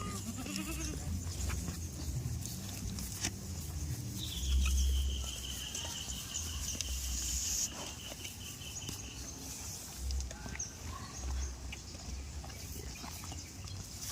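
Goats bleating now and then, with a thin high, slightly falling tone held for several seconds near the middle.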